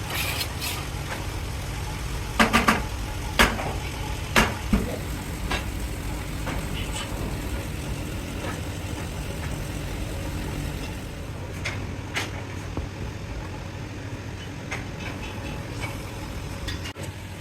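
Steady low hum of running factory machinery, with a cluster of about six sharp knocks a couple of seconds in and two fainter ones past the middle.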